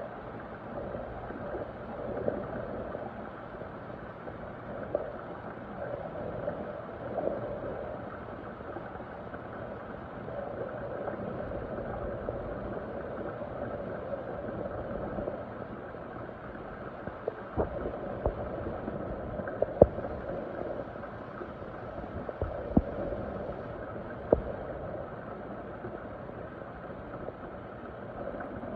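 Water gurgling and bubbling steadily, with a few sharp clicks in the second half, the loudest about two-thirds of the way through.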